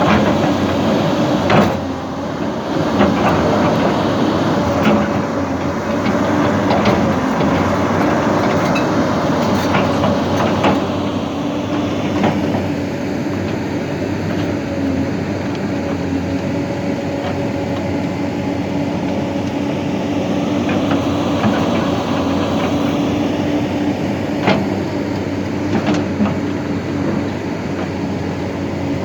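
Hyundai excavator's diesel engine running steadily, with a few sharp knocks and clanks, most of them in the first half.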